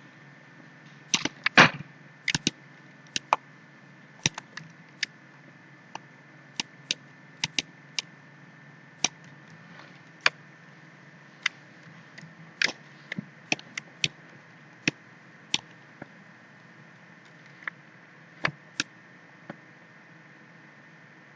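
Computer mouse clicking, sharp single clicks at irregular intervals of about half a second to a second, louder and closer together about a second in and again past the middle, thinning out near the end. A faint steady hum lies underneath.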